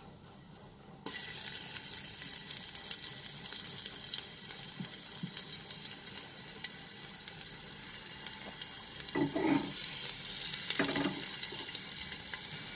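Chopped ginger and garlic sizzling and crackling in hot mustard oil with cumin seeds in a pressure cooker. The sizzle starts suddenly about a second in and stays steady, with two short louder sounds about a second and a half apart near the end.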